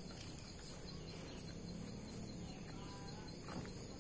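Quiet rural farm-pen ambience: a steady high-pitched insect drone with a few faint bird chirps about two and a half to three seconds in, over a faint low hum.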